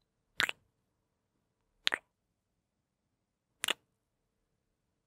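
Three short kissing sounds made with the lips close to the microphone, about a second and a half apart.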